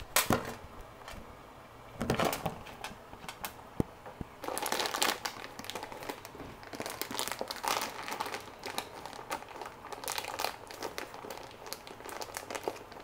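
Plastic packaging of a bag of tortellini crinkling as it is handled, in irregular bursts, loudest near the start and a few seconds in; near the end kitchen scissors are put to the bag to cut it open.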